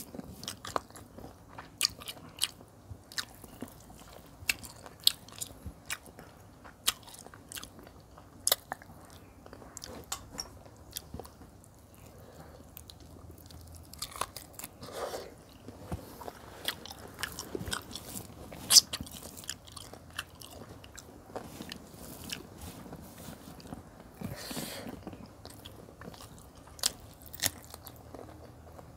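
Close-miked eating of chicken curry and rice by hand: irregular wet chewing, biting and sharp mouth clicks and crunches, with a chomp into a piece of chicken about halfway through.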